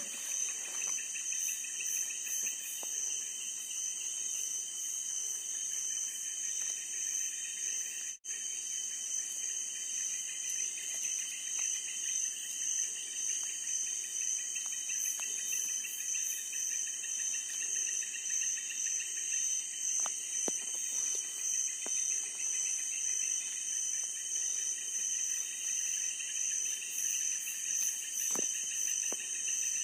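Night chorus of insects, likely crickets among them: several steady, high-pitched trills layered on top of one another, pulsing finely. The chorus drops out for an instant about eight seconds in, and a few faint taps come through later.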